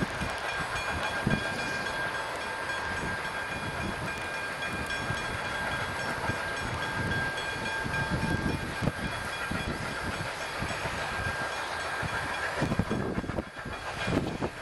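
2-8-0 steam locomotive working a goods train, its exhaust beating in low chuffs over a steady hiss of steam.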